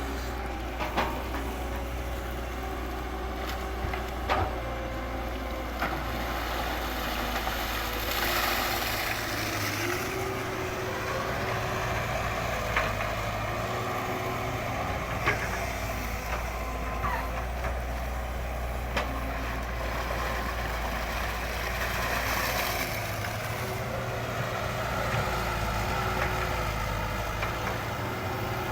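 Radio-controlled model excavator running: a steady motor hum whose pitch steps up and down as it works, with scattered sharp clicks.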